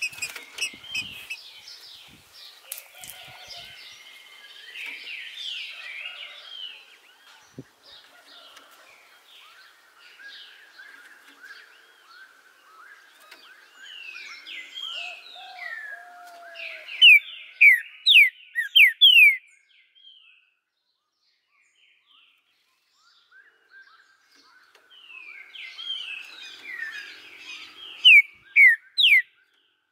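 Green-winged saltator (trinca-ferro) singing: two runs of loud, quick, falling whistled notes, one about halfway through and one near the end, with softer chirps scattered before them.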